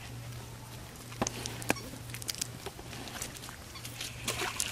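Scattered light taps, ticks and rustles of a nylon cast net being worked by hand on sandy ground, with live fish flapping in the mesh, over a steady low hum.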